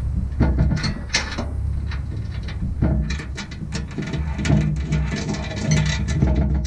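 Socket ratchet clicking in short, uneven runs, with metal knocks, as the hitch's bolts are run into the pickup frame's weld nuts.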